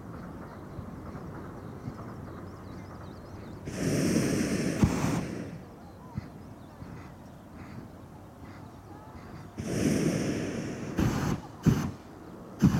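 Two blasts of a hot-air balloon's propane burner, each lasting about one and a half to two seconds, about four and ten seconds in. A few short knocks follow near the end.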